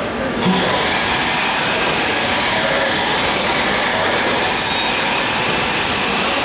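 Six-line plastic bag making machine running, a steady mechanical noise.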